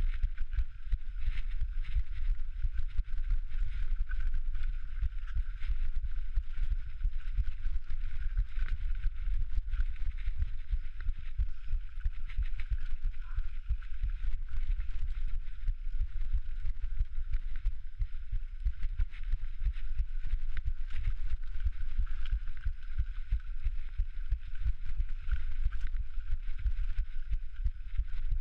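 Continuous low thumping of the mountain-bike rider's heartbeat, mixed with knocks and rattles from the bike riding a rough, technical downhill trail.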